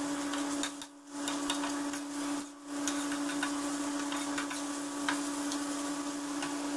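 Metal spatula scraping and ticking against an iron tawa as mutton mince is stirred and fried, over a steady hum.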